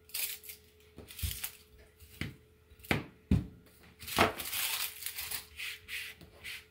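Papery outer skin being peeled and torn off a red onion by hand, rustling and crackling, with a handful of sharp knocks of a chef's knife and onion pieces on a plastic cutting board.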